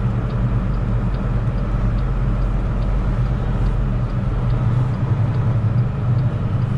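Semi truck's diesel engine running steadily with road noise, heard from inside the cab, with a faint tick a little more than once a second.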